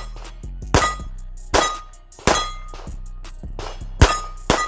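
Pistol fired five times, each shot a sharp crack followed by a brief ringing tone. The first three come about three-quarters of a second apart, then after a pause two quicker shots near the end.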